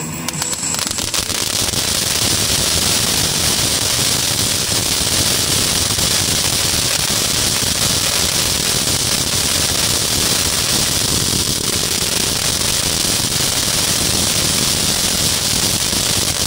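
TNT Centennial XL fountain firework spraying, a steady loud hiss packed with dense crackling from its crackle effect. It holds one even level with no pauses.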